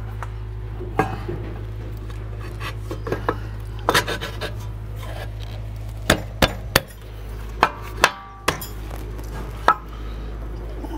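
Rear brake caliper being worked by hand over the rotor and onto its mount: scattered light metal clicks and knocks as it is shifted and seated, over a steady low hum.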